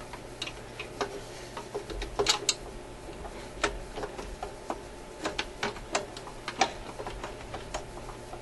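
A scatter of small, sharp clicks and knocks, unevenly spaced, as hands work at a plug and its wiring inside a record player's metal chassis to pull the plug out. A couple of louder knocks come about two and a half seconds in.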